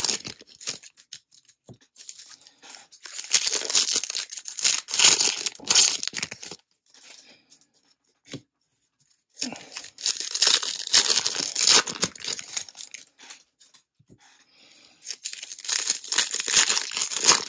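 Foil wrappers of 2024 Bowman baseball card packs being torn open and crinkled by hand, in several bouts of a few seconds each with short pauses between.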